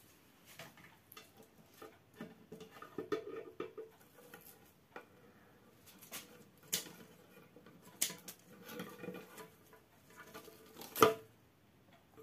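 Leafy bramble stems rustling and scratching as they are handled and arranged in a glass terrarium, with scattered clicks and taps and one sharp click near the end.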